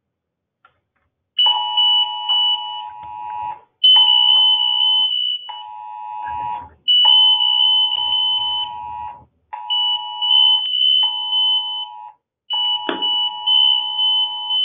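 Alertus Alert Beacons sounding their intruder-lockdown alarm: a loud electronic chime of steady tones that starts about a second and a half in and repeats in phrases of about two seconds, separated by short breaks.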